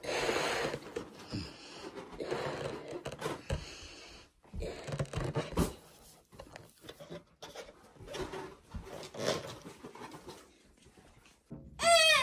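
A latex balloon being blown up by mouth: repeated breaths into it, each about a second long, with short pauses between. A short high squeal comes near the end.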